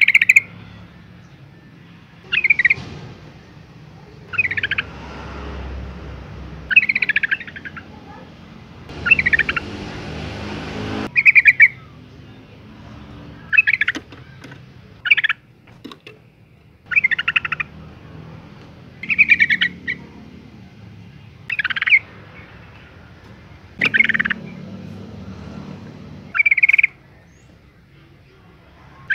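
Yellow-vented bulbul giving short chattering calls, about a dozen, each under a second long and spaced roughly two seconds apart. The recording is billed as a female in breeding condition calling for a male.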